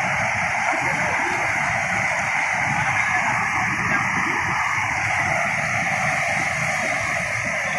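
Steady rushing of water pouring over a small weir, an even hiss of falling water.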